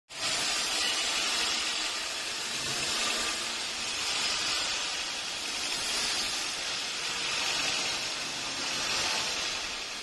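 Band saw mill cutting through a teak log: a steady, loud hiss of the blade in the wood, swelling and easing slightly every second or two.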